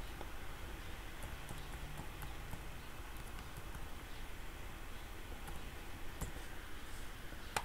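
Computer keyboard typing: sparse, faint keystrokes over a steady low hum, with a sharper click near the end.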